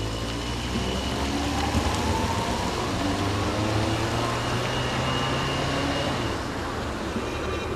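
Road traffic noise: a steady rush with a low hum and faint engine tones sliding up and down in pitch. The hum drops away about six seconds in.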